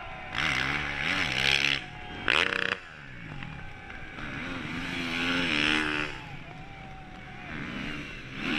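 Several racing dirt bikes pass close by one after another, their engines revving up and down through the bend. The loudest pass comes about two seconds in.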